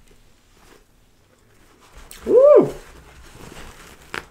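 A woman's hummed "mmm" of enjoyment while chewing a mouthful of sandwich, about two seconds in; it rises and then falls in pitch over about half a second. A brief rustle of paper towel comes near the end.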